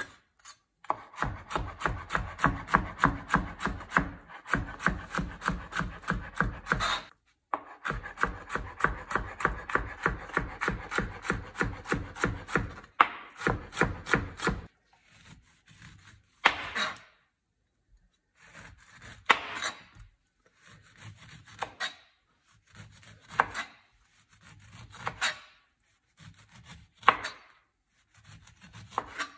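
Kitchen knife chopping fast on a cutting board, several even strokes a second in two long runs broken by a short pause. After that come slower, separate rasping strokes every second or two.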